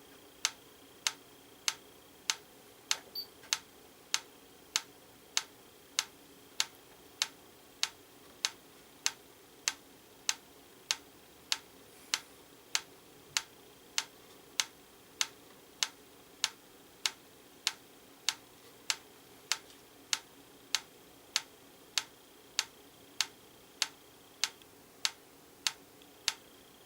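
Franz FB-4 electric metronome ticking steadily, one sharp click a little over one and a half times a second, about 98 beats a minute. That is well slow of its 112 setting, during calibration.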